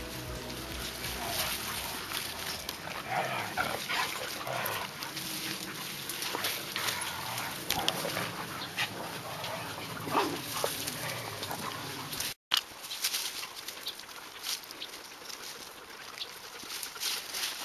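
Siberian huskies whining and yipping now and then, in short rising and falling calls, among scattered clicks and rustles.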